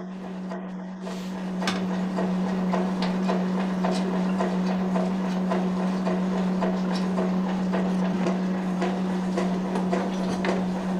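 A workshop machine running with a steady hum and a dense, irregular clattering that gets louder about a second and a half in.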